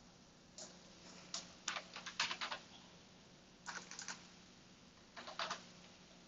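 Computer keyboard being typed on in short bursts of keystrokes: a single tap, then a quick run of keys, then two shorter groups.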